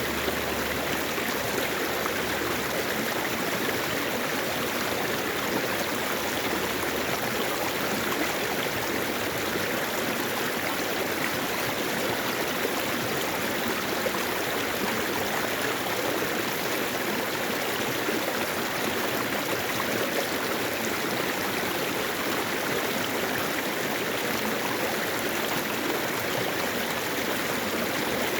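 Mountain valley stream flowing steadily: an even, continuous rush of water.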